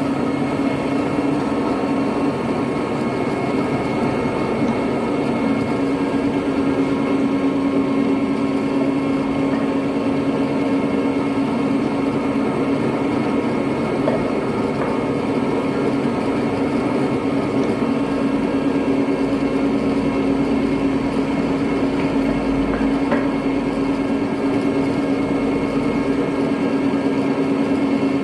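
Electric meat grinder fitted with a sausage-stuffing tube, running steadily under load with a constant motor hum as sucuk mince is pushed through it into beef casing.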